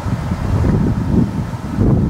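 Wind buffeting the microphone: loud, gusty low rumble in uneven surges, dropping away suddenly at the very end.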